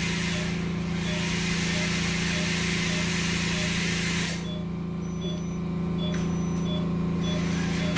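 Dental air compressor running with a steady low hum, driving the air-powered prophy polishing handpiece, whose high hiss cuts off about halfway through, leaving the compressor hum and faint regular beeps.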